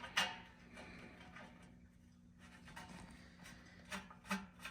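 Faint clicks and light rubbing of the EGT temperature probe being handled and threaded by hand into the exhaust silencer, over a steady low hum; a few sharper clicks come near the end.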